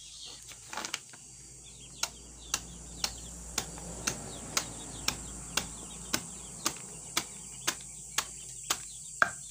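A large knife chopping through a banana stem onto a wooden board in steady strokes, about two a second, starting roughly two seconds in.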